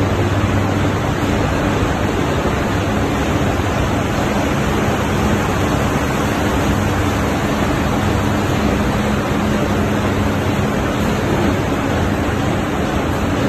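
Automatic metallized-film cardboard laminating and coating machine running: a steady rush of noise with a low hum underneath.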